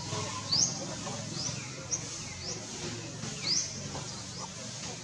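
A series of short, high-pitched rising chirps, one about every half second to a second.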